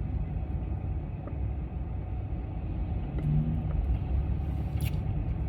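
Steady low vehicle rumble heard from inside a car, with a brief low hum about three seconds in and a faint click near the end.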